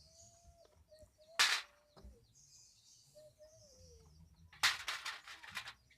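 Sharp metallic clack about a second and a half in, then a rattling run of quick clicks near the end, from tools and nuts being worked while the cylinder head's four nuts are fitted on a Honda Supra 125 engine. A chicken calls faintly in the background.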